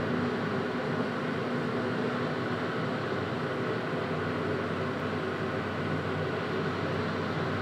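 Steady hum and hiss of a Hitachi Rail tram's onboard equipment (ventilation and electrical systems), heard inside the passenger cabin while the tram stands still, with a few faint steady tones running through it.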